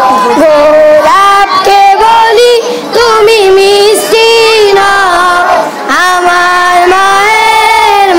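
A boy singing a Bengali gojol, an Islamic devotional song, about his mother, solo and without instruments. He holds long notes that waver in pitch and slide between phrases, with short breaks for breath about three and six seconds in.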